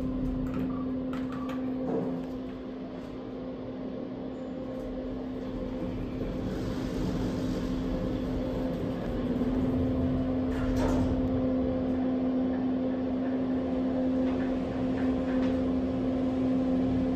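Kone traction elevator heard from inside the car. A few short button beeps and clicks come in the first couple of seconds, and a sharp click comes about eleven seconds in. A steady hum runs throughout and grows a little louder as the car rides.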